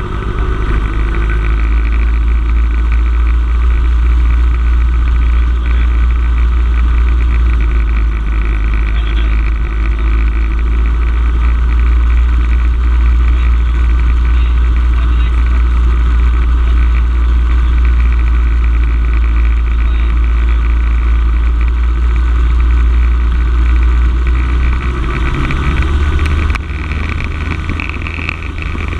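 Cessna 172M's four-cylinder Lycoming engine and propeller heard from inside the cockpit. The engine runs steadily at raised power while the aircraft stands still, as in a pre-takeoff run-up, with a deep drone. Near the end the engine note drops back to a lower power.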